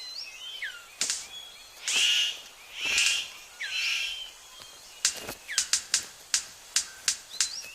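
Male superb bird of paradise courting: four harsh, rasping calls about a second apart, then from about five seconds in a fast run of sharp clicks as his display starts. Other birds whistle short gliding notes in the background.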